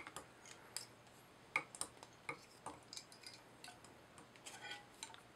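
Faint, irregular small clicks and ticks of fly-tying tools and fingers being handled at the vise while thread is wrapped to tie off the tinsel.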